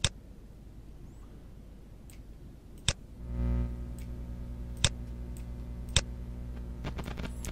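Simulated record dust from the iZotope Vinyl plug-in: sparse sharp clicks and pops over a faint hiss. About three seconds in, a low mains hum with buzzy overtones comes in and holds steady. It is the plug-in's imitation of a badly grounded turntable.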